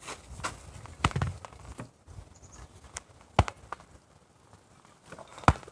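A hard plastic punching ball hanging from a rope, punched with plastic-lined gloves: three sharp whacks about two seconds apart, with lighter taps between them.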